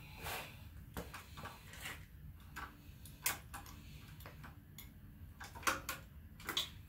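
Hand ratchet clicking in short irregular runs as it is worked back and forth on bolts of an AMC 4.2 L inline-six engine, with a few sharper metallic clicks.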